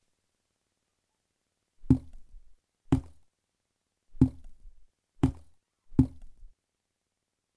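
Five dull knocks, roughly a second apart, each trailing off in a short low rumble, with nothing else audible between them.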